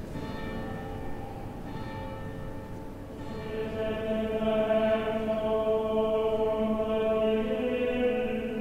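Cathedral bells ringing, a few strokes, giving way about three seconds in to a choir singing long held notes.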